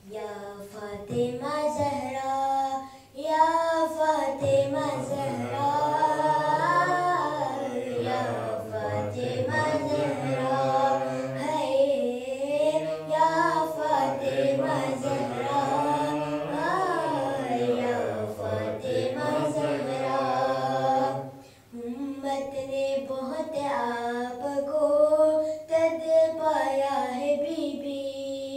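A boy singing a devotional recitation solo into a microphone, without instruments, holding long notes that glide up and down. He breaks off for breath twice, about three seconds in and again a little past twenty seconds.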